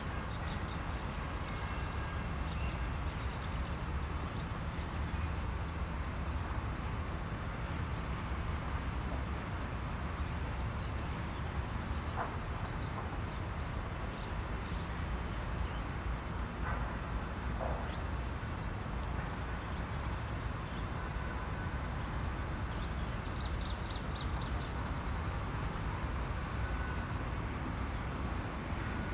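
Steady low background rumble, with a brief high bird trill about two-thirds of the way through.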